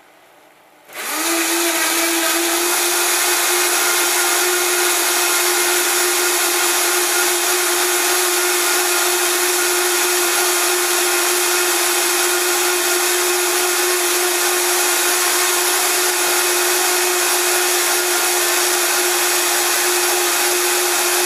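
Vitamix blender running at high speed, blending watermelon and cucumber chunks into a smooth liquid. The motor starts about a second in, spins up briefly in pitch and then runs loud and steady.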